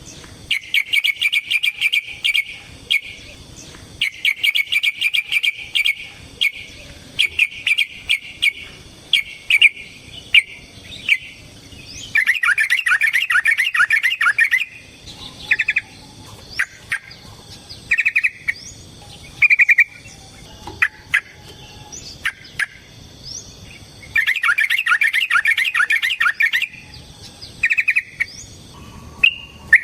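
Yellow-vented bulbul (trucukan) singing in bursts of fast chattering trills, the longest about two and a half seconds, with short single notes and chips between the bursts.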